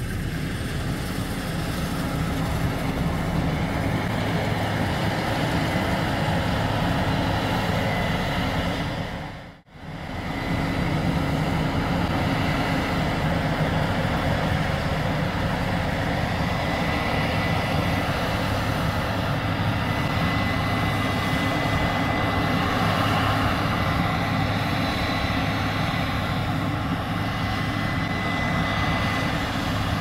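Case IH 8230 Axial-Flow combine running steadily while harvesting, its engine and threshing machinery making a continuous drone. The sound drops out briefly about ten seconds in, and a thin steady whine runs through the second part.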